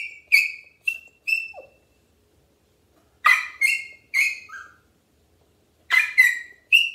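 A puppy barking in high-pitched yaps, in three short bursts of three or four barks each. This is separation distress: he barks because he has been left alone in his crate.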